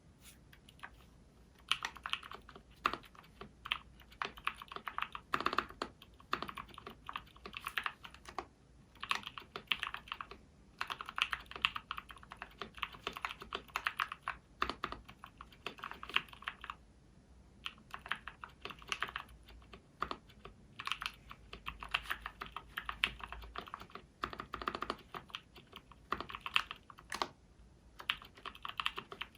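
Typing on a 60% mechanical keyboard in an acrylic case with lubed SP-Star Purple switches: fast runs of keystrokes, broken by short pauses every few seconds.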